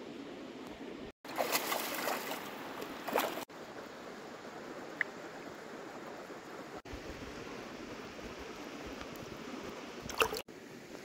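Shallow river water running steadily, with splashing for about two seconds starting a second in and a brief splash near the end as a fish is let go from the hand in the water.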